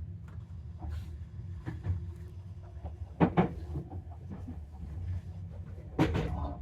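Running noise inside a moving commuter train cabin: a steady low rumble from the wheels and running gear, with short sharp knocks about three seconds in and again near the end.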